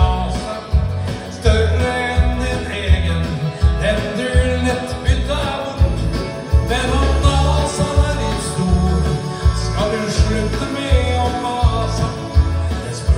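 A man singing a song in Norwegian into a handheld microphone, amplified through a small PA speaker, over recorded accompaniment with a steady bass beat.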